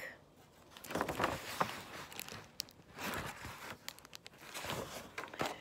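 Sheets of paper rustling and crinkling as they are handled, in a few short spells with some sharp clicks.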